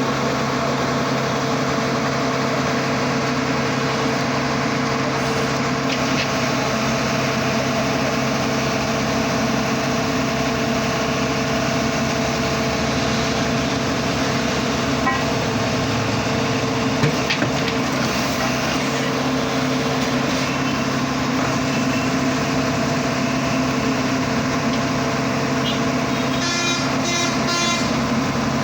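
Engine of an earth drilling machine boring for optical-fibre cable, running steadily. A vehicle horn sounds briefly near the end.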